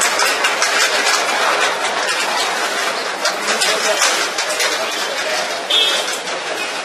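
Busy city street ambience: a constant hubbub of crowd and traffic noise with frequent sharp clatters and clicks, and a short high chirp about six seconds in.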